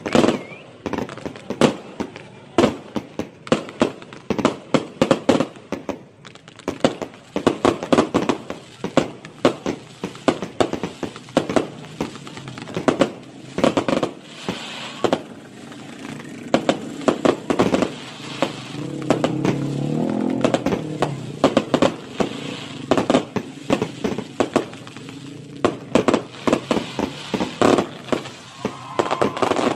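Fireworks going off: an irregular string of sharp bangs and crackling bursts from aerial shells, often one or two a second, thickening into a denser, steadier crackle around the middle.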